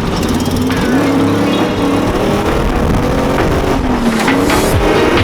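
Drift car's engine revving up and down, its pitch rising and falling several times, with a short burst of hiss just past the middle.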